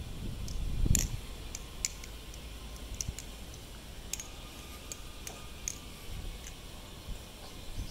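Glidr Sahara clone balisong (butterfly knife) being flipped, its handles and blade clicking against each other in irregular sharp clicks, the loudest about a second in.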